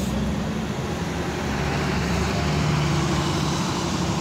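Street traffic with a large coach's diesel engine running close by: a steady engine hum under the road noise, growing a little louder about halfway through.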